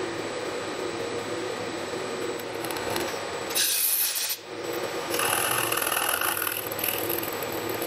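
Milling machine spindle running with a 2 mm drill bit cutting through a Weber carburetor's accelerator pump lever and throttle shaft. A steady motor hum runs under it, with a loud rasping scrape about three and a half seconds in and a longer scraping stretch with a thin whine from about five to seven seconds in.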